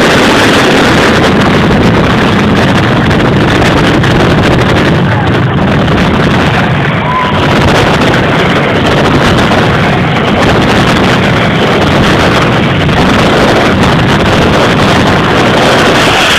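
Mascletà firecrackers and aerial thunder shells exploding in a dense, continuous barrage. The bangs come so fast that they merge into one very loud, unbroken din, typical of the mascletà's closing stretch.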